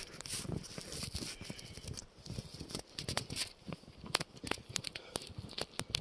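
Irregular crunching and crackling close to the phone's microphone, from snow and the snow-covered robe rubbing against it as he moves through snow.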